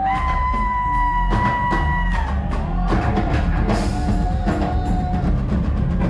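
Live rock band playing: drum kit, electric guitars and keyboards, with a high lead note held for about two seconds at the start and a lower held note about four seconds in.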